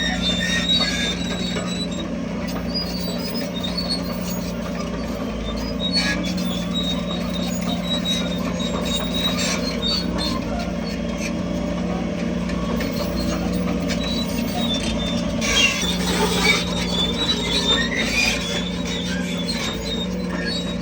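Shantu crawler bulldozer running, its diesel engine a steady drone under repeated high squeaks and squeals from its steel tracks, with a louder cluster of squeals about sixteen seconds in.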